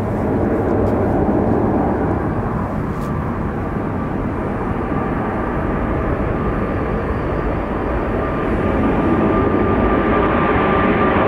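Jet airliner's engines during a takeoff: a steady, loud rumble with a thin whine that grows stronger and a little louder near the end.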